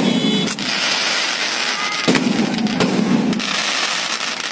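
Fireworks going off: several sharp bangs spread through the few seconds, with crackling between them.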